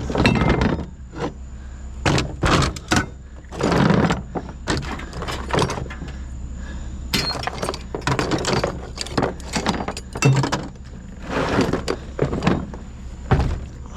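Pieces of scrap metal being handled and tossed onto a pile: a run of irregular clanks, knocks and clatters, some briefly ringing.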